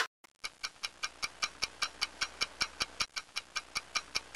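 Steady clock-like ticking sound effect, about five even ticks a second, starting abruptly about half a second in.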